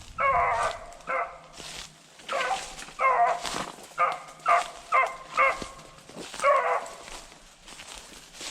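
Beagles giving mouth, a string of about ten short barks with a quick run of four about four seconds in. This is hound voice on a rabbit track.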